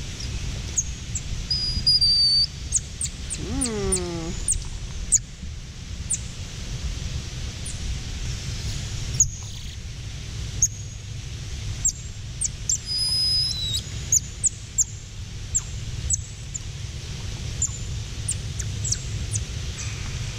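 Golden lion tamarins giving many short, sharp high-pitched chirps and a few falling whistles, over a steady low hum. One lower falling call comes about four seconds in.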